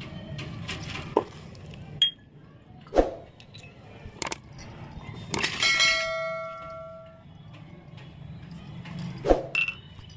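Miniature stainless-steel toy utensils clinking as they are handled, with a handful of sharp separate clinks. About halfway through, a single bell-like metallic ding rings out and fades over about a second and a half.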